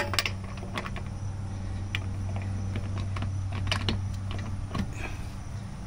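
Ratchet head of a click-type torque wrench clicking irregularly as it works a wheel lug nut, over a steady low hum.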